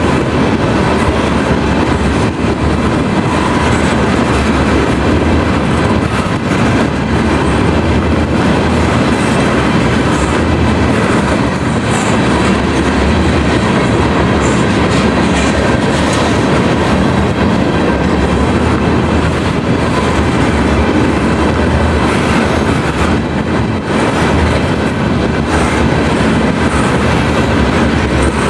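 Railroad cars rolling past close by, a steady loud rumble of wheels on rail with a clickety-clack of wheels over rail joints.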